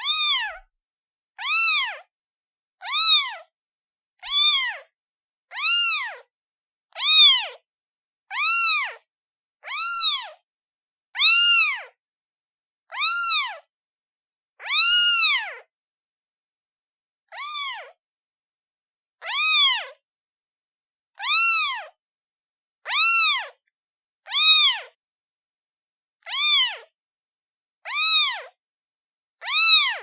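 A day-old kitten meowing over and over to call its mother. The cries are thin and high-pitched and each rises then falls in pitch. They come about one every one and a half seconds, with a slightly longer pause a little past halfway.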